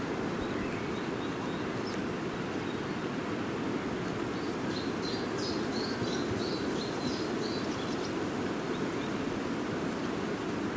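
Steady outdoor background noise over a town seen from high ground, with a small bird chirping in quick short notes for a few seconds in the middle.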